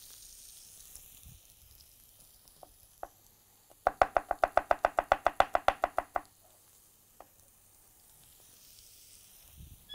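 Rapid knife chopping on a cutting board, a quick run of about ten even strokes a second lasting some two seconds near the middle, over a faint sizzle from mushrooms, onion and garlic frying in a pan.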